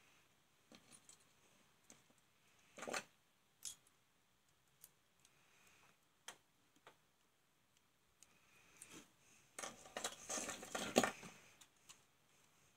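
Small plastic-and-metal parts of a dismantled contactor being handled: scattered light clicks and rattles, with a busier clatter about ten seconds in.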